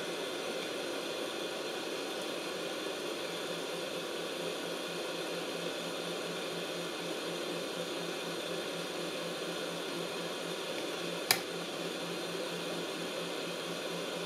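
Hot air rework gun of a YiHua 853D station blowing a steady stream of hot air, its fan giving an even whirring hiss, while it heats a component on a circuit board to desolder it. A single sharp click sounds about eleven seconds in.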